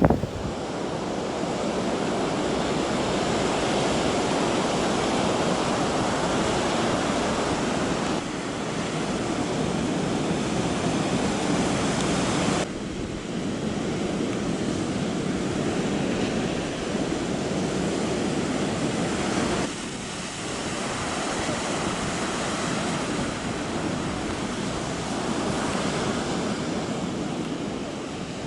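Ocean surf: a steady wash of breaking waves from a large typhoon swell. The sound jumps abruptly in level three times.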